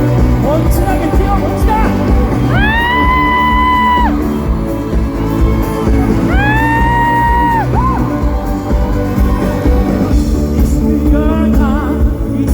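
Live pop band and singer performing, heard loud through a hall PA. A high voice holds two long notes, the first about two and a half seconds in and the second about six seconds in, and a wavering vocal line comes near the end.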